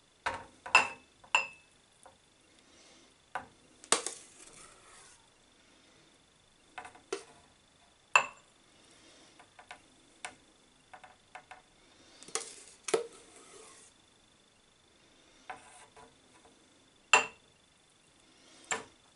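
Metal ladle clinking and scraping against a plastic measuring jug and a glass jar as thick pepper purée is spooned into the jar: irregular sharp clinks, a few with a short ring, and a couple of longer scrapes.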